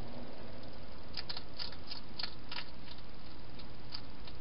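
Hedgehog eating at a bowl inside a plastic feeding box: an irregular run of short, sharp chewing clicks from about a second in until near the end, over a steady hiss.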